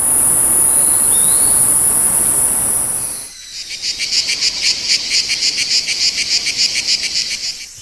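Cicadas calling: first a steady, high-pitched buzz, then, after a sudden change about three seconds in, a lower buzz made of rapid, even pulses.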